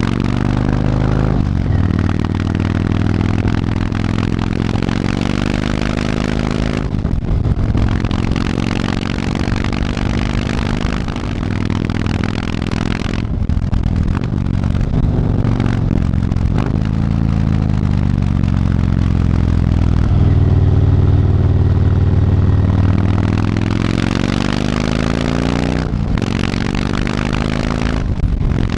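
Yamaha MT-01's big air-cooled V-twin, fitted with an Akrapovič exhaust, pulling hard while under way. The pitch climbs through the revs, then drops away briefly several times as the throttle closes for gear changes.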